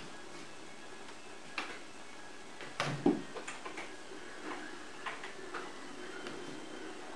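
Scattered light taps and clicks from a cat moving around a cardboard box on a wooden floor, over a faint steady hiss, with the loudest knock about three seconds in.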